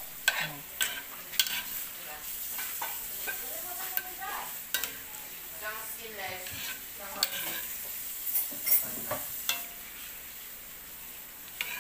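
Beef and broccoli stir-frying in a frying pan: a steady sizzle, with a metal spoon scraping and clacking against the pan in many short knocks as the food is stirred.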